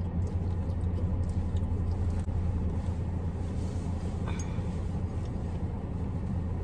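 A car engine idling, heard inside the cabin as a steady low hum. Over it come faint rustles and small clicks as a knit sweater is pulled onto a dog, with one brighter tick about four seconds in.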